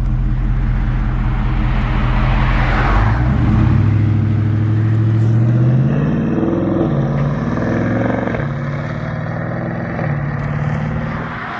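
Stock Dodge Charger Scat Pack's 392 (6.4-litre) HEMI V8 on its factory exhaust, idling, then pulling away and accelerating. Its pitch rises about three seconds in, swings up and down a few seconds later, then fades as the car drives off.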